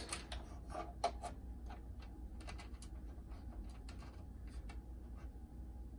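Faint, irregular clicks and light taps of hands working on the opened boombox's plastic case and parts, over a low steady hum.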